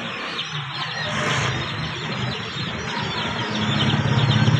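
A motor vehicle's engine running nearby over a steady hiss. It grows louder in the last second or so, with a deep pulsing rumble.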